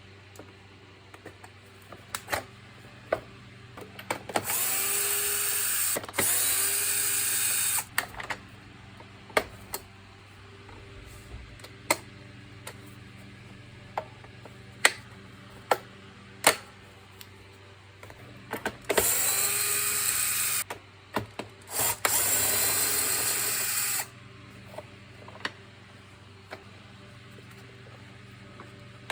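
Electric screwdriver running in four short bursts, in two pairs, each starting with a rising whine before running steadily and cutting off. Between the bursts there are sharp clicks and knocks of parts and tools being handled.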